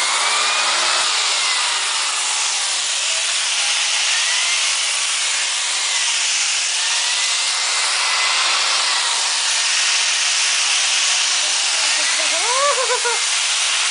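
Vacuum cleaner running steadily as it is drawn over a chocolate labrador's coat, its whine rising and falling slightly as it goes. A short voice sounds near the end.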